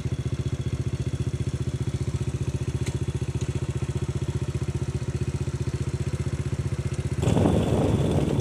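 Motorcycle engine idling with an even, steady putter, then getting louder and rougher about seven seconds in as the bike pulls away.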